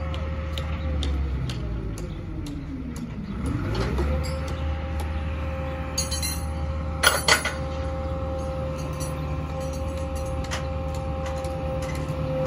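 Engine-driven machinery of a barge-mounted crane running with a low hum and a steady whine. About a second in, the whine slides down in pitch, then climbs quickly back about four seconds in. A few sharp metal clanks about seven seconds in are the loudest sounds.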